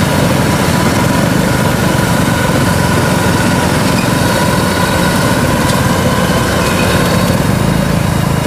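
Steady engine drone of a Kubota DC93 combine harvester's diesel engine as the machine travels along the road on its tracks, heard from close behind.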